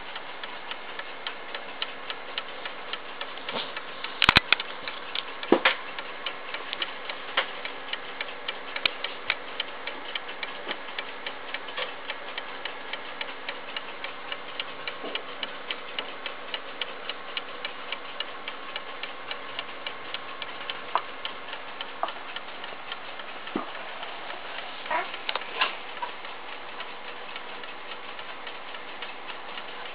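Kienzle kitchen clock movement with a Brocot escapement ticking steadily. A couple of louder knocks come about four and six seconds in.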